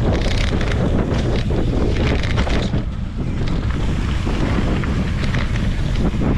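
Wind rushing over the microphone of a camera on a mountain bike descending a dirt and rock trail, with a constant patter of knocks and rattles from the bike over rough ground. It eases briefly about three seconds in.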